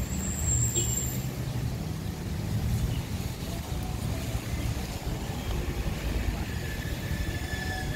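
Road traffic on a wet city street: cars driving past in a steady low rumble of engines and tyre noise.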